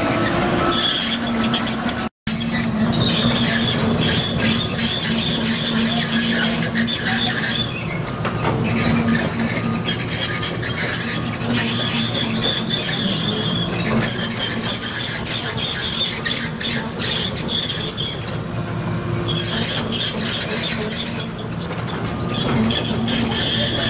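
Kobelco SK330LC excavator working, its Mitsubishi six-cylinder turbo diesel running steadily beneath a continuous high-pitched metallic squeal. The sound cuts out for an instant about two seconds in.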